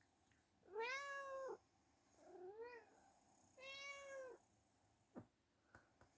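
A cat meowing three times, each call under a second long with an arched pitch, the middle one quieter and shorter. A single sharp click about five seconds in.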